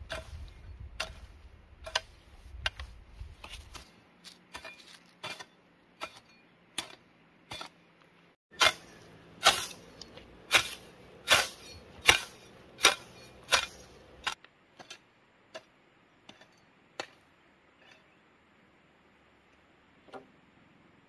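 A hoe chopping into grassy soil: a steady series of sharp thuds, about one every second or less. About halfway through comes a run of some nine much louder strokes, then a few light taps.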